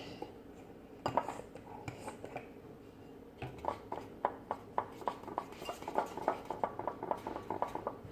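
A utensil stirring homemade slime mixture in a bowl, clinking against the bowl. A few scattered taps at first, then from about halfway a quick run of several clinks a second.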